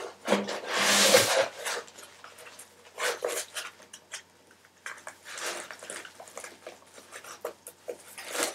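Rustling and scraping of packaging as a part is pulled out of its box, in several bursts, the loudest about a second in.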